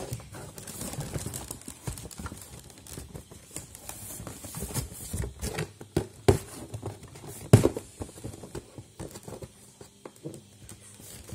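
Small plastic toy playset pieces being handled: irregular light clicks, taps and rustles, with a sharper knock about seven and a half seconds in.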